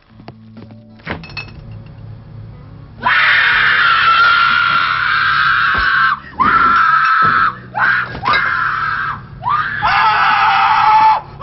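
People screaming in fright: several long, loud, high screams one after another, starting about three seconds in. Before them there is a low steady hum and a few faint clicks.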